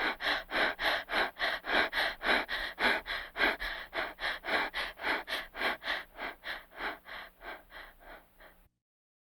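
Rapid, heavy breathing, panting in and out about three to four times a second. It fades gradually and stops abruptly near the end.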